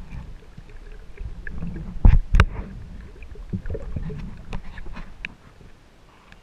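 Water sloshing and rumbling with scattered small clicks, and two loud sharp knocks in quick succession about two seconds in.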